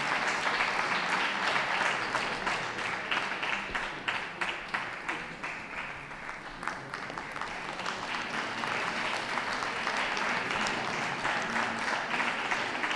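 Audience applauding steadily, easing off a little about halfway through and building again.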